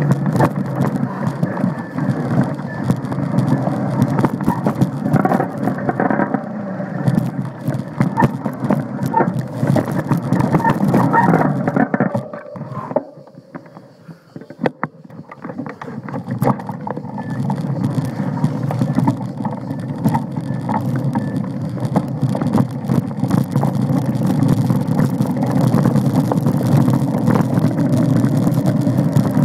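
Mountain bike riding over a rough dirt woodland trail: a continuous rumble of tyres on dirt and stones, with many small knocks and rattles from the bike. It goes much quieter for a few seconds about halfway through, then picks up again.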